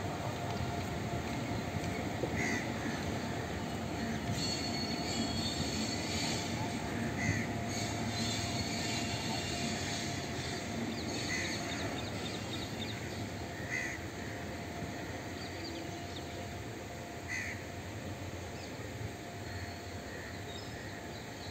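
WAG-9 electric locomotive running slowly on the track, a steady rumble with a thin steady whine and some wheel squeal, fading slightly as it moves away. A bird calls several times, briefly each time.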